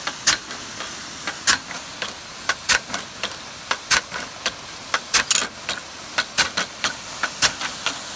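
Nelson SR150 big-gun irrigation sprinkler running: a steady hiss of the water jet, with sharp irregular clicks about one or two a second as the drive arm swings in and out of the stream.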